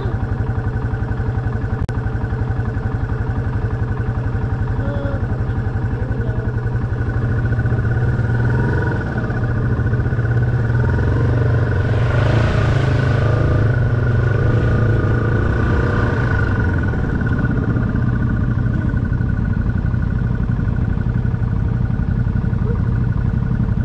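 Motorcycle engine running close to the microphone with an even, pulsing beat. About nine seconds in it gets louder as the bike pulls forward, with a brief rush of noise around twelve to sixteen seconds in.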